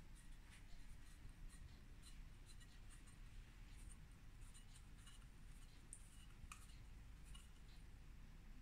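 Near silence with faint, scattered light ticks and rubbing from hands wrapping dough strips around cannoli cone forms.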